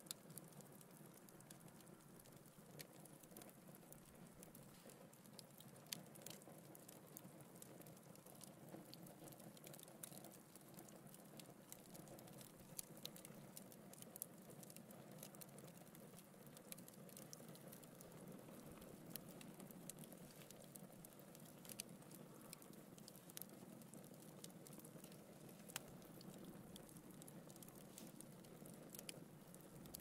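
Wood logs burning in a fireplace: a faint steady hiss of flames with scattered small crackles, and now and then a louder pop.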